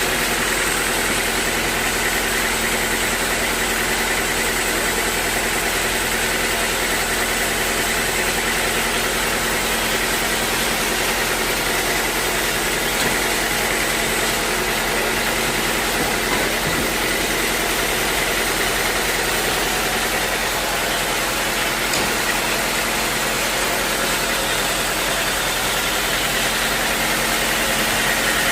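Sawmill machinery running steadily: a constant mechanical hum with a few held tones, no changes or impacts throughout.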